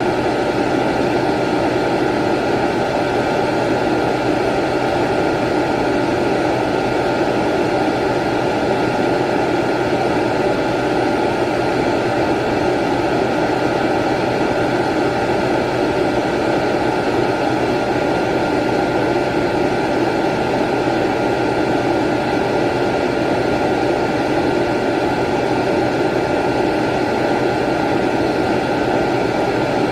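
Vacuum cleaner running steadily: a constant rush of air with a low hum and a thin high whine, unchanging throughout.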